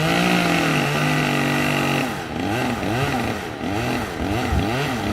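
Two-stroke chainsaw running at high revs, held steady at first, then revving up and down over and over from about two seconds in.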